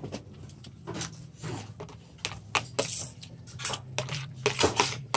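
Scattered small clicks and knocks of a spoon and plastic plates being handled while eating, over a steady low hum.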